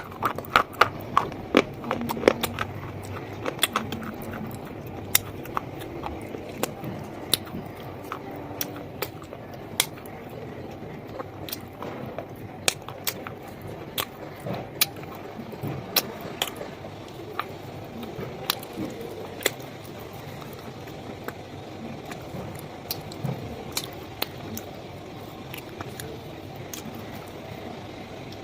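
Close-miked chewing of a black KitKat chocolate wafer bar: a quick run of loud crunches in the first couple of seconds, then sparser irregular crisp crackles as the mouthful is chewed down.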